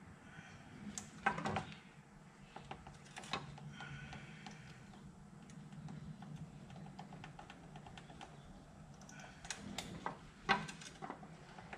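Hand ratchet wrench clicking in short runs as a fastener is worked, with a few sharper clacks of metal tool on metal about a second in and near the end.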